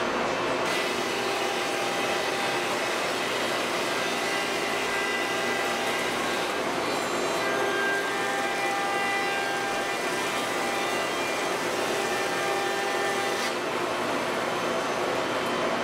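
CAMaster CNC router spindle running a wide surfacing bit across wooden boards, planing them flat under a dust-collection shoe. A steady whine sits over a rushing hiss. A brighter cutting hiss sets in about a second in and drops away near the end.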